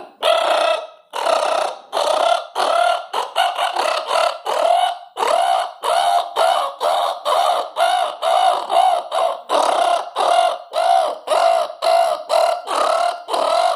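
A man imitating an unusual night bird's call with his voice: a long run of short calls, each rising and falling in pitch, repeated over and over and growing shorter and quicker towards the end.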